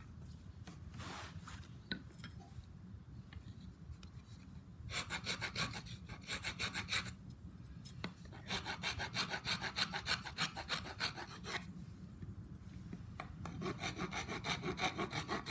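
A four-in-hand rasp filing the wooden neck of an axe handle in quick back-and-forth strokes, about four a second, in three bouts of two to three seconds each with short pauses between. This is the shaping stage, taking wood off the neck so it fits snugly in the eye of the axe head.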